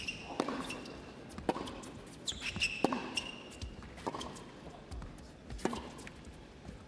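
Tennis ball being struck and bouncing, a sharp knock about once a second, with short rubber shoe squeaks on the court near the start and again about two to three seconds in.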